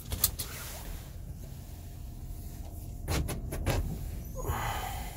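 GMC Savana van's engine idling low and steady, heard from inside the cab. A sharp click comes just after the start and a quick run of knocks about three seconds in.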